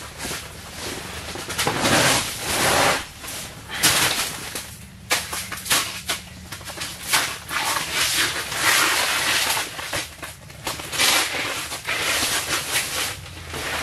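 A heavy carpet mat being unrolled, lifted and dragged over snow in a fabric ice shack: a string of uneven rustling, scraping and flapping noises.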